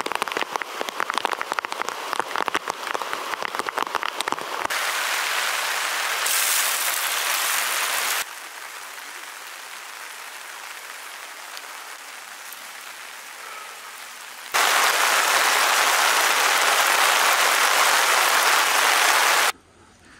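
Fairly heavy rain falling. The first few seconds are a dense patter of individual drops, then the rain becomes an even hiss that changes level abruptly several times: quieter through the middle, louder again later, and cutting off suddenly near the end.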